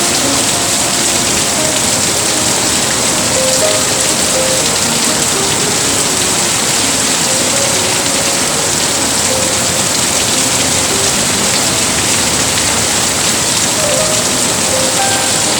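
Steady rain falling on surfaces, a dense even hiss.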